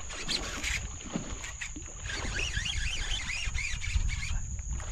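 Wind rumbling on the microphone, with birds chirping in quick, wavering, repeated calls from about two seconds in, over a steady thin high whine.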